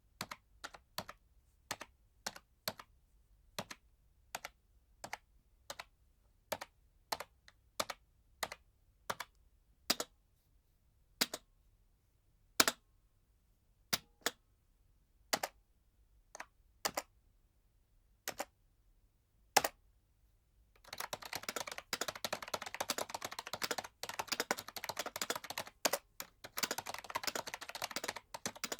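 Computer keyboard typing: single keystrokes, one or two a second and unevenly spaced, for about twenty seconds, then fast continuous typing with many key clicks a second.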